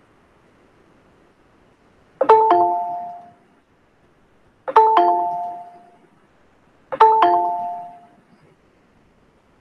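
Two-tone doorbell chime, a ding-dong of a higher note falling to a lower one, rung three times about two and a half seconds apart, each fading out over about a second.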